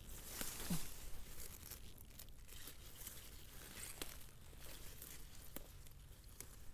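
Wild garlic flower stalks being picked by hand: faint rustling of the plants with a few sharp snaps as stems break.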